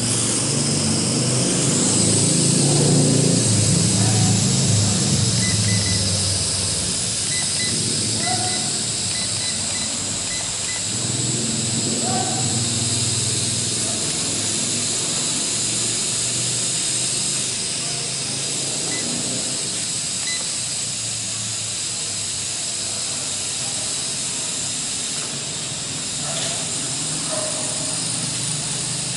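L6036 mini quadcopter's motors and propellers running, a steady high whine over a hiss, with a low rumble rising and falling in the first several seconds.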